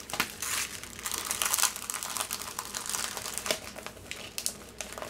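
A diamond painting canvas and a sheet of white paper being rolled up by hand, crinkling and rustling, a little louder in the first couple of seconds.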